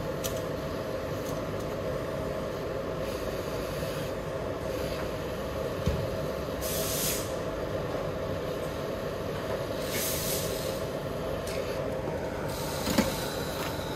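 A steady running air noise, with three short bursts of hiss, about halfway, a little later and near the end, and two light knocks.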